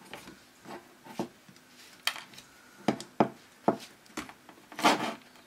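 Keihin CV carburettor bodies being worked apart by hand, their metal castings and joining pieces knocking and clicking: a string of irregular clunks, the loudest about two, three and five seconds in.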